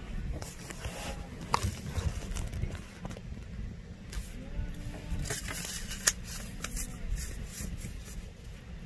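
Wind rumbling on a phone microphone, with scattered clicks and crackles of handling, and faint distant voices now and then.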